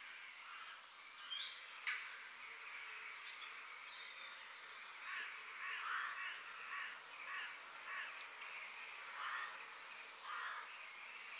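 Paniyaram fritters deep-frying in hot oil, a steady sizzle, with birds calling over it. There is a sharp tap about two seconds in.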